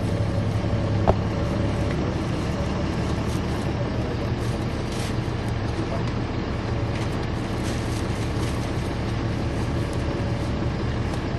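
Caterpillar C13 ACERT diesel engine of a NABI 416.15 transit bus running at a steady speed, with no revving. A single sharp click about a second in.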